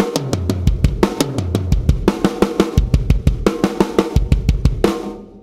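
Drum kit playing a one-bar fill in quick strokes: snare, tom, floor tom twice and bass drum twice, repeated, then four snare strokes and four bass-pedal strokes, twice. The last strokes ring out and die away near the end.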